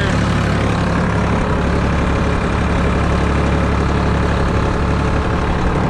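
Ford 2810 tractor engine running steadily under load as the tractor pushes snow with a front-mounted plow.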